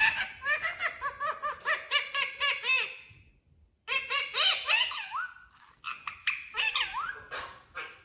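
Pet parrot calling and chattering: a run of quick repeated high notes, about six a second, for the first three seconds, then a short pause and two more bursts of calls.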